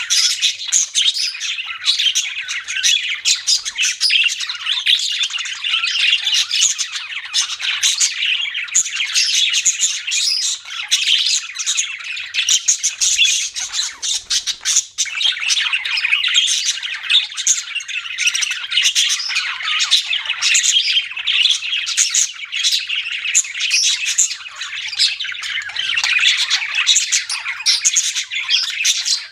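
Budgerigars chirping and chattering without a break, many short high calls and squawks overlapping, easing off briefly around the middle.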